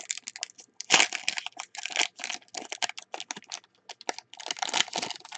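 Foil trading-card pack wrapper crinkling and crackling in the hands as it is torn open, in quick irregular bursts.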